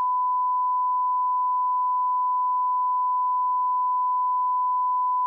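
Steady 1 kHz line-up test tone: a single pure beep at one unchanging pitch and level, the reference tone laid on the tail of an edit master.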